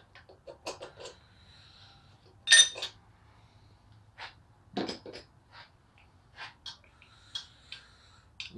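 Metal-on-metal clicks and clinks as an air-cooled VW engine's rocker arm assembly is lifted off the cylinder head studs and handled. One sharp, ringing clink about two and a half seconds in is the loudest, with another knock near five seconds.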